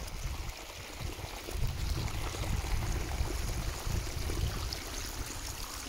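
Rainwater trickling and splashing in a small runnel down the stones of a hillside path.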